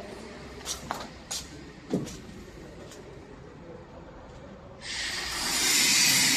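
A few sharp clicks and knocks over a low machine hum, then about five seconds in a loud steady hiss starts and keeps going.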